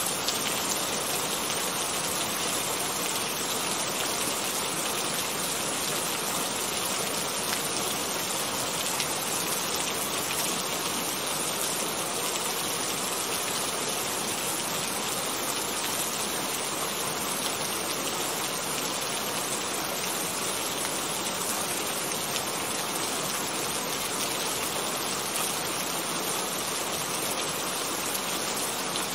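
Steady rainfall: an even, unbroken hiss of rain.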